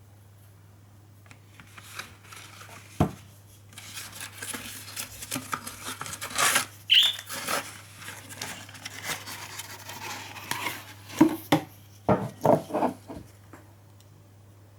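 Hands handling small objects, most likely the syrup's packaging: rustling with scattered clicks and knocks, a short high squeak midway and a run of sharp knocks near the end.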